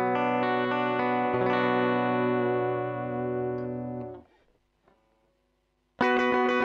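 Clean Fender Stratocaster electric guitar run through a compressor: a chord rings and sustains for about four seconds, then is cut off. After a short silence, fast picked notes start near the end.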